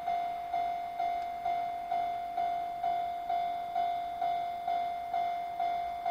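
Japanese railway level-crossing warning bell ringing: one high bell-like tone, struck about twice a second, each strike sharp at the start and fading before the next.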